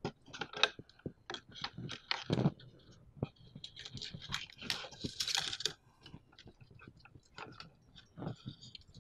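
Hands handling stepper-motor wires and plastic connectors: a run of irregular sharp clicks and rustling, with a longer scratchy rustle of the wire bundle from about four to six seconds in.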